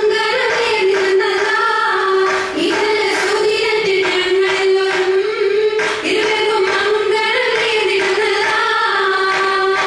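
Voices singing an Oppana song, a Mappila wedding song, with a drawn-out wavering melody, accompanied by the dancers' hand claps.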